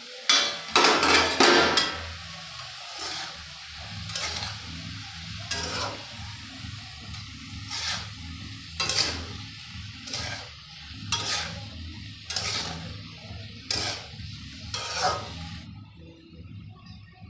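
Metal spatula stirring cauliflower and potato pieces in a steel kadai, scraping across the pan in strokes every second or so over a steady sizzle of frying. A louder clatter of the steel lid being lifted comes just at the start, and the stirring stops near the end.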